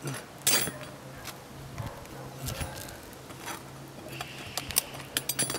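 A flat steel roof bar prying under an asphalt shingle to work a roofing nail loose: scraping and metallic clicking, with a sharp scrape about half a second in and a quick run of clicks near the end.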